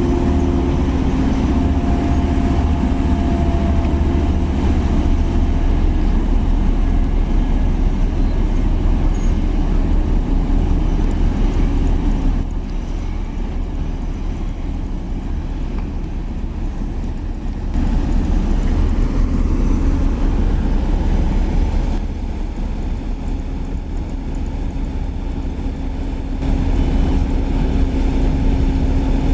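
Diesel engine of heavy road-construction machinery running steadily with a deep rumble and a steady hum, growing quieter and louder again twice.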